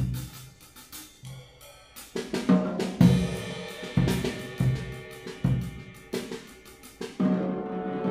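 Clarinet and drum set playing a duet: the drum kit strikes drums and cymbals in a steady pattern of hits about every half second while the clarinet plays held notes, growing louder and fuller from about seven seconds in.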